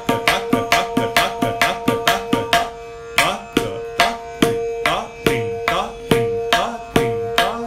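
Tabla pair playing a kehrwa taal pattern at medium tempo: ringing strokes on the tuned right-hand drum (dayan) with deep strokes on the left-hand bass drum (bayan) that slide down in pitch. Quick strokes for the first two and a half seconds, then evenly spaced strokes about twice a second.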